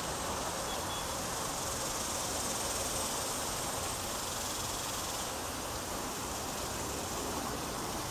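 A chorus of summer insects buzzing steadily, an unbroken high hiss that doesn't change.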